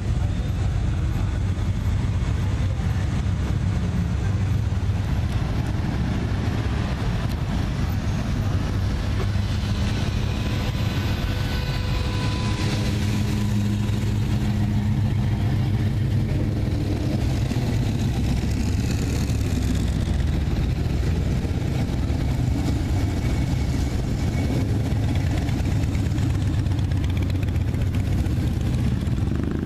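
Vehicle engines running steadily at low speed as cars roll slowly past, a continuous low rumble. One engine note stands out for a few seconds about halfway through.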